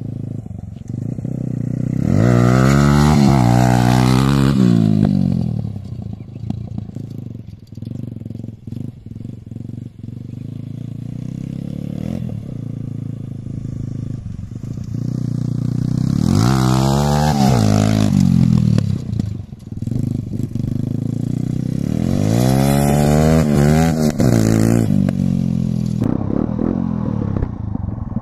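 Modified TVS Apache RTR 160's single-cylinder four-stroke engine being ridden, revving up hard three times, each burst rising and then falling in pitch, with lower, steadier running in between.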